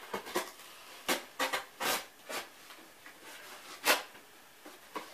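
Craft knife cutting and scraping through corrugated cardboard: a string of short, sharp rasping strokes at irregular intervals, the loudest about four seconds in.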